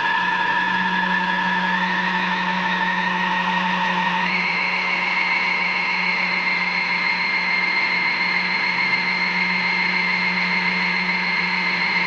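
Toy washing machine's small electric motor spinning the drum: a steady whine over a rattly hum, which steps up slightly in pitch about four seconds in.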